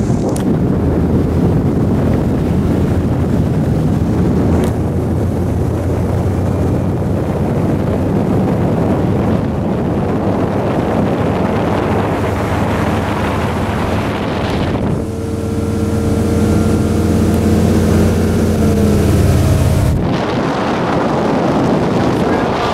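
Maxum 2400 SCR cruiser's sterndrive engine running steadily under way, with wind buffeting the microphone. For a few seconds in the second half the engine's drone comes through more clearly before the wind noise returns.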